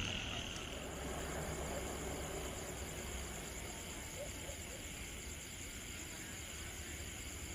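Night insects, crickets among them, chirring steadily, over a low steady rumble. A couple of faint short chirps stand out, about four seconds in and near the end.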